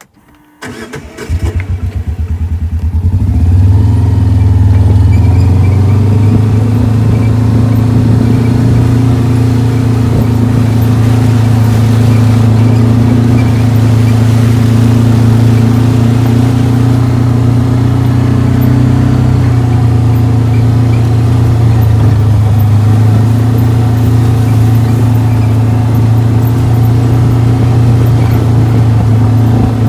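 A vehicle engine starts about half a second in, builds over the next couple of seconds, then runs at a steady pitch while driving, easing off briefly around twenty seconds in before picking up again.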